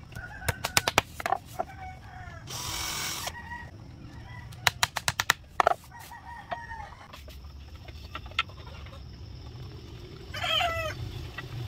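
Claw hammer driving nails into bamboo slats, two quick runs of about six blows each, one just after the start and one about five seconds in. Chickens cluck in the background, with a louder call near the end.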